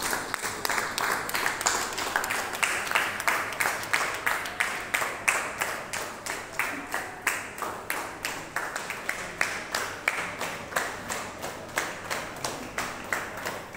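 A group of hospital staff clapping together in a steady rhythm, about two to three claps a second.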